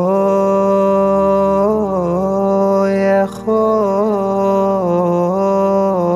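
A man singing a slow Arabic lament, long held notes that bend and turn in pitch, with a short break about three seconds in.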